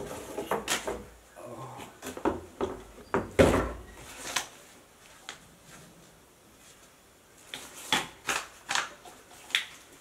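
Gaming headset being unpacked from its cardboard box, paper and plastic wrapping: scattered knocks, scrapes and rustles, the loudest about three and a half seconds in. After a quieter stretch, a quick run of sharp clicks and rustles comes near the end.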